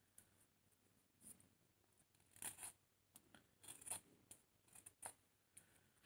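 Carving knife shaving a wooden butter-knife blank: a series of faint, short scraping strokes about a second apart as thin shavings come off the wood.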